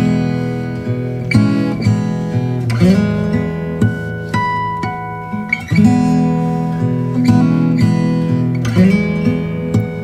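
Background music on acoustic guitar, with plucked notes and strums.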